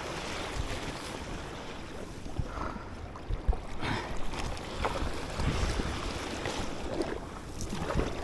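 Rough sea water sloshing and splashing around a sea kayak running with following waves in a fast tidal race, with a few short splashes against the hull. Wind buffets the microphone with a low rumble throughout.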